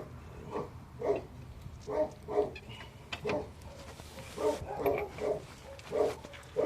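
A dog barking repeatedly, short barks coming about one or two a second, over a low steady hum.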